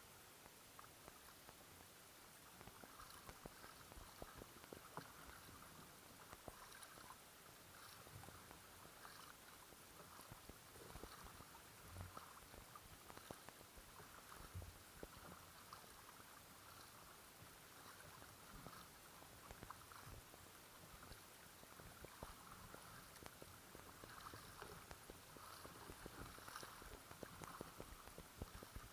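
Faint kayak paddling: soft splashes and gurgles of paddle strokes in the water every second or two, with a light trickle along the hull of an Oru folding kayak and an occasional small knock.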